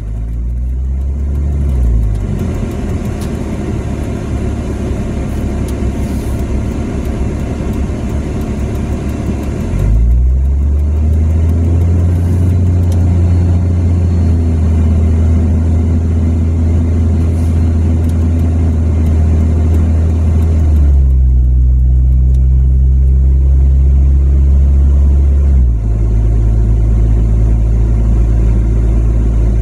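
A vehicle's engine drone and road noise heard from inside the cab while driving, a steady low hum. Its pitch drops about two seconds in, rises around ten seconds in as the vehicle speeds up, and jumps abruptly twice near the end.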